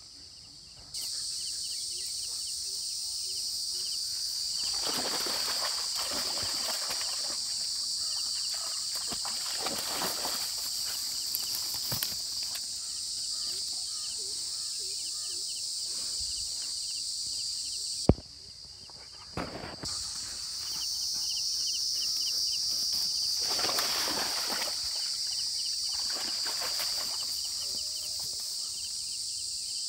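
Insects droning steadily at a high pitch, with fainter chirping beneath. The drone cuts out with a sharp click a little past halfway and resumes about two seconds later. Several short bursts of rustling, as of grass and brush being pushed through, rise and fade over it.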